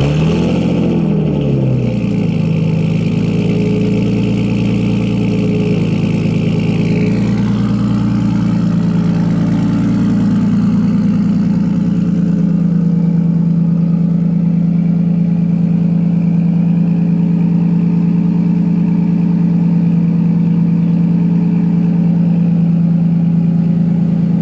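Nissan RB20DET straight-six, heard at its dual-tip exhaust, just after a cold start. It flares up as it catches, drops back into a fast idle, and settles to a steady idle about halfway through.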